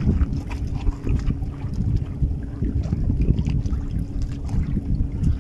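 Wind buffeting the microphone: a low, gusting rumble. Faint crunches of footsteps on shoreline rocks come in the first second or so.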